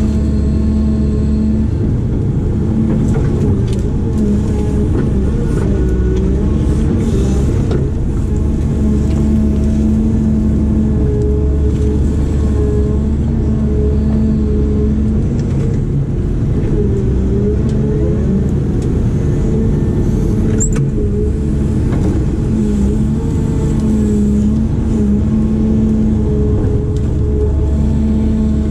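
Diesel engine of a heavy earth-moving machine running steadily under working load, its pitch dipping and recovering as the load changes, with a few faint knocks.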